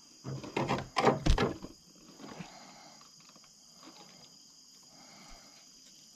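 Steady high chirring of night insects, with a short cluster of loud, rough sounds in the first two seconds.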